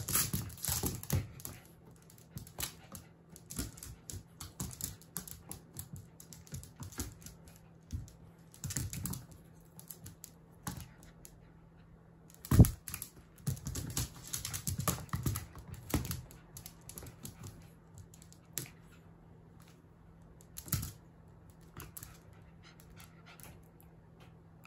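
Jack Russell Terrier puppy's claws and paws clicking and skittering on a hardwood floor in irregular flurries as it chases and pounces, with one sharper knock about halfway through.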